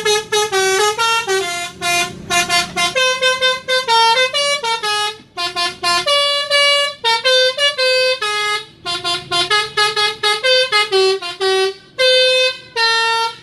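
Telolet musical horn (Basuri type) on a truck playing a fast tune of short, stepping notes, with a few notes held longer.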